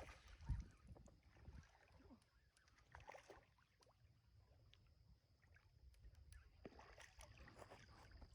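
Near silence: faint night-time outdoor ambience with a faint steady high tone, a few small clicks, and one brief low thump about half a second in.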